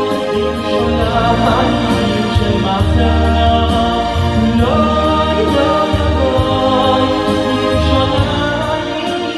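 Live Jewish pop song: a man singing into a microphone over an electronic keyboard playing bass, chords and a steady programmed drum beat.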